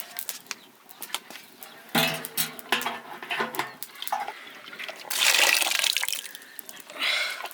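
Water being poured and splashed, loudest about five seconds in and again near the end, amid scattered clicks and knocks of kitchen utensils.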